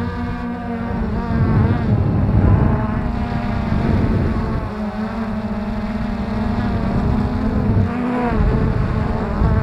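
Freex quadcopter's electric motors and propellers buzzing, heard from the camera on board, with a pitch that wavers up and down, over low rumbling wind noise on the microphone.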